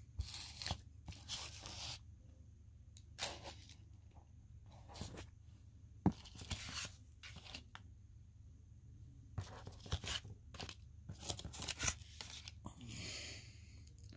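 Paper and card stock rustling and crinkling in short irregular bursts as handmade card tags are handled and shifted, with a sharp tap about six seconds in.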